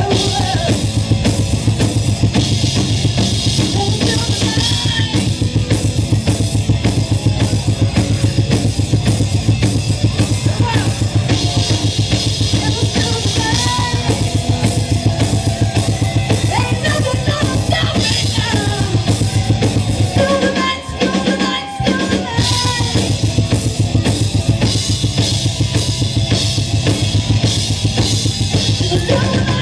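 Live rock band playing with a driving drum kit and electric guitar. A little past two-thirds of the way through, the bass and drums drop out for about a second and a half before the full band comes back in.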